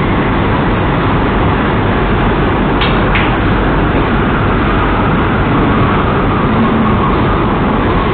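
Loud, steady hiss and hum of room noise picked up by a low-quality security camera microphone, with two short clicks about three seconds in.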